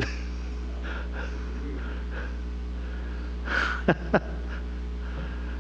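Steady low electrical hum of the sound system, with a short breathy laugh about three and a half seconds in.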